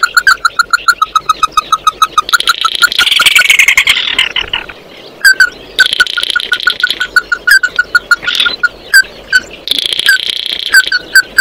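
A crake calling: fast runs of short, sharp repeated notes, several a second, that break off and start again in shorter bursts. About three seconds in there is a harsher, falling rasp.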